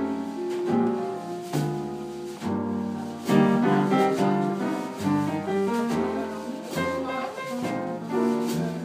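A live jazz trio playing: upright acoustic piano chords and melody over a plucked double bass walking through low notes, with a drum kit keeping time underneath.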